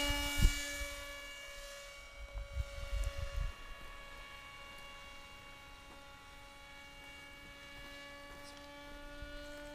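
Bixler RC plane's electric motor and 6x4 propeller holding a steady, high-pitched drone, fading over the first couple of seconds as the plane climbs away. There is a sharp knock about half a second in and a few low thumps around two to three seconds in.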